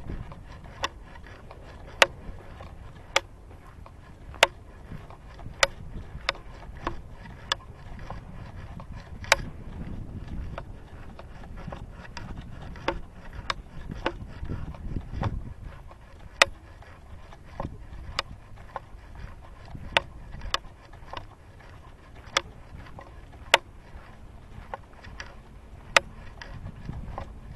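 Footsteps at an even walking pace: a sharp tick about every second and a bit, with fainter ticks between, over a low rumble.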